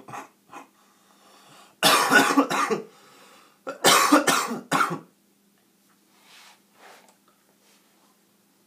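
A person coughing: two loud bouts of several quick coughs each, the first about two seconds in and the second about four seconds in.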